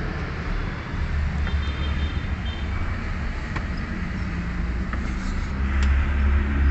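Steady low rumble of a running vehicle engine, with a few faint clicks.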